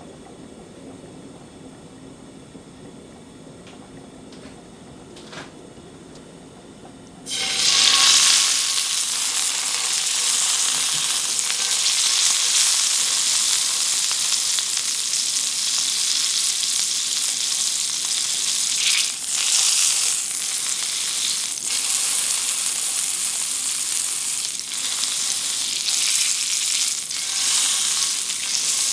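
Raw pork chop frying in hot oil in a frying pan: after a few quiet seconds, a loud sizzle starts suddenly about seven seconds in as the meat hits the pan, then keeps going steadily.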